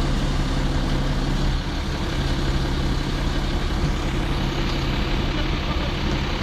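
Fire-service aerial ladder truck's diesel engine running steadily to power the raised ladder platform, its low note shifting slightly about one and a half seconds in.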